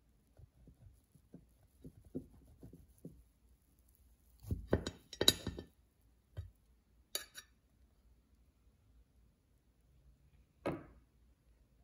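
Serrated knife sawing through a loaf cake and clinking and scraping against a ceramic plate: soft strokes at first, a cluster of louder clinks a few seconds in, then single knocks, one near the end.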